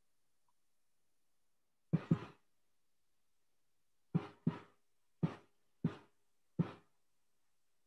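Seven short knocks or taps heard over a video call: a quick pair about two seconds in, then five more spaced about half a second to a second apart, with dead silence between them.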